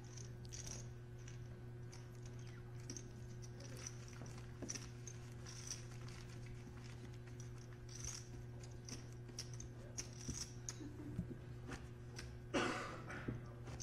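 Faint clicking of poker chips as a player gathers and stacks a won pot, with a louder rustle near the end, over a low steady hum.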